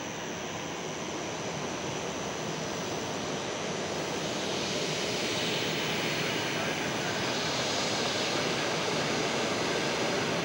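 Boeing 737-300 jet engines running at taxi power, a steady rush with a high whine that slowly grows louder as the airliner taxis closer.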